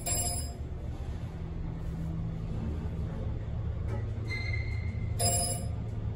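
Elevator car travelling upward, a steady low hum and rumble of the ride, with two short high beeps about five seconds apart.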